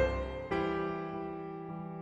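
Background piano music: sustained chords with a new note struck at the start and another about half a second in.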